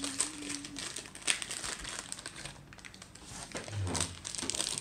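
Blind-bag toy packet crinkling as it is handled and opened by hand, with a sharper crackle just over a second in.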